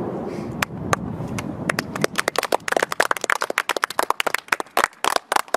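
A group of children clapping: a couple of lone claps at first, then from about two seconds in the clapping builds into quick, uneven applause from many hands.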